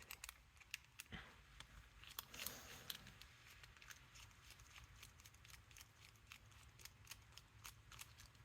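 Near silence with faint, scattered small clicks and ticks of a padlock's metal parts being handled as it is taken apart to reach the core.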